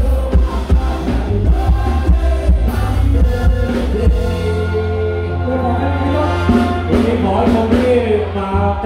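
Live rock band playing through a loud PA: drum kit, electric bass and male singing. About halfway through the drums drop out, leaving held bass and sustained notes under the voices.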